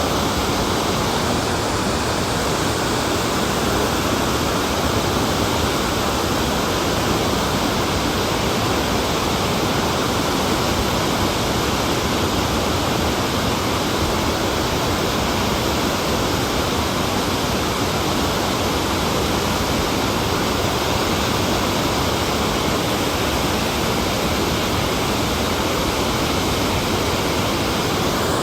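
Water pouring over a hydroelectric dam, a steady loud rushing roar of falling water.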